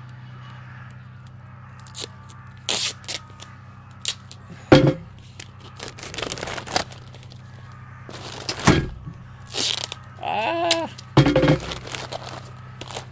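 Wrapping paper crinkling and rustling, with several short sharp rips, as a bicycle helmet is gift-wrapped with paper and tape.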